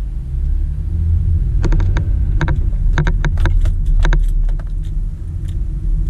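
Cabin sound of a 2007 Toyota Sienna minivan driving: a steady low road and engine rumble. From about a second and a half to five seconds in, a run of irregular light clicks and rattles rides over it.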